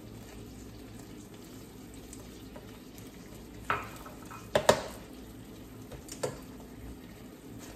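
Brown sugar being stirred into a sauce sizzling in a stainless skillet with a plastic slotted spatula: a low steady sizzle, with a few sharp knocks of utensils against the pans, the loudest a quick double knock about five seconds in.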